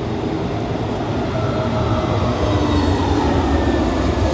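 Jet airliner engines: a steady, loud rumble with faint whining tones that rise slightly in the middle.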